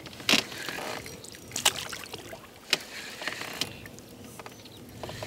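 A few sharp knocks and clicks of gear being handled in a small boat, spaced about a second apart, over a steady hiss of water and wind.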